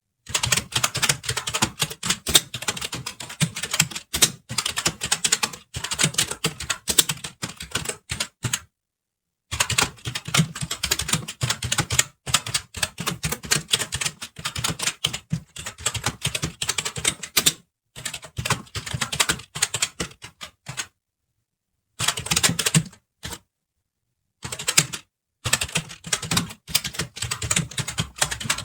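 Fast typing on a computer keyboard: dense runs of key clicks, broken by a pause of about a second roughly a third of the way in and by a few short gaps of dead silence about three quarters of the way through.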